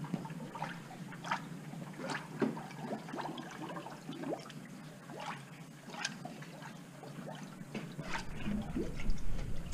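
Green engine coolant gurgling and trickling out of a funnel into a car's cooling system, with irregular small bubbling pops as air works its way up. Near the end more coolant is poured in from a jug.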